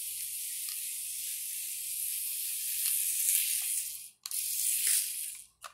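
Micro 1:64-scale RC car's tiny electric motor and gears whirring in a high, hissy tone as it drives over tile, cutting out suddenly about four seconds in and again near the end as the throttle is let off.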